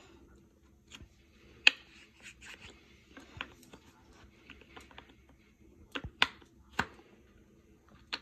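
Wooden puzzle piece knocking and clicking against a wooden puzzle board as a toddler tries to fit it into its slot: a handful of irregular sharp taps, with faint rubbing between them.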